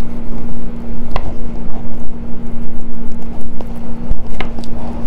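Baked potatoes being squashed by hand in a metal muffin tin, with soft squishing and a few light clicks about a second in and near the end. A steady low hum and rumble run underneath.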